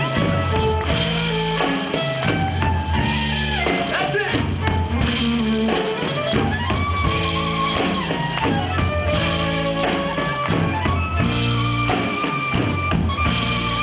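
Live gypsy-style fiddle tune: the fiddle plays a melody with slides and held notes over a steady low accompaniment.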